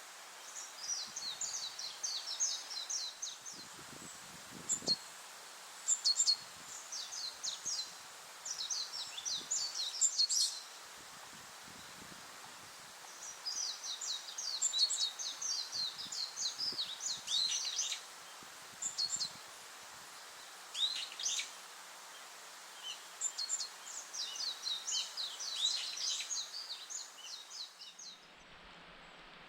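A songbird singing: repeated phrases of rapid high notes, each a few seconds long, with short pauses between, over a faint outdoor hiss.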